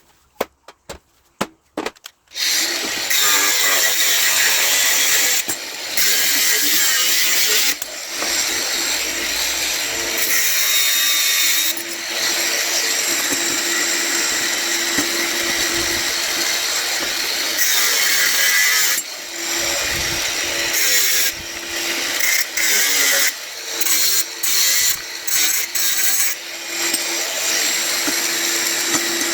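A few light clicks, then an electric power tool cutting into brass scrap from about two seconds in. It runs in long stretches with short stops, which come more often in the second half.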